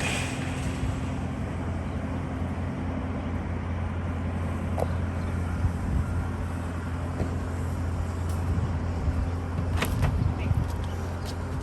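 An engine running steadily at a constant speed, with a low, even hum, and a few sharp clicks or knocks near the end.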